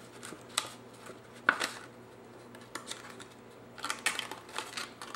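Cardstock being folded and pressed into shape by hand: scattered light taps and crackles of the stiff paper, the sharpest about a second and a half in, then a quick run of small clicks near the end.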